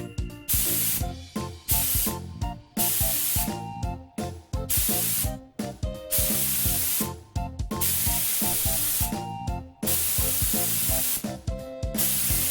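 Repeated blasts of compressed air from an air compressor's hose, about eight bursts of hissing air, some short and some lasting a second or more, with background music.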